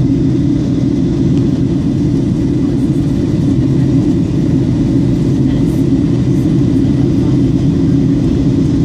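Steady cabin noise inside a WestJet Boeing 737 in flight: the jet engines and rushing air heard through the fuselage as a dense, even low drone.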